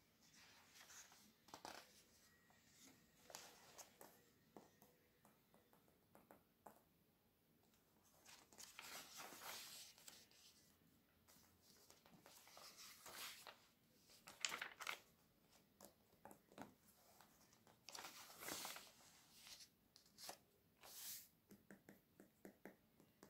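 Soft handling of a glossy paper catalogue: fingertips and nails brushing and tapping the pages, with page turns rustling a few times.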